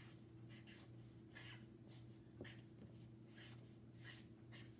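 Felt-tip marker faintly scratching across poster paper in a series of short strokes as a word is written by hand, over a steady low room hum.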